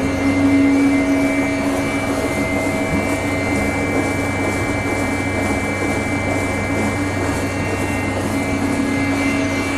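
Stainless steel slurry mixer with a bottom electric rotor drive running steadily while mixing a tank of water: a constant hum and whine from the drive over the noise of the churning blades.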